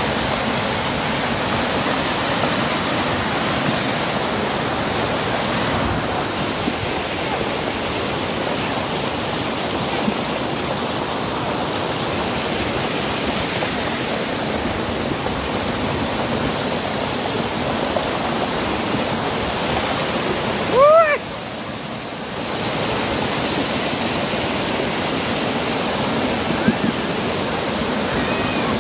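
Muddy flash-flood water rushing in a steady torrent. About two-thirds of the way through, a short high-pitched call cuts through, and the rushing sounds quieter for a second or two just after it.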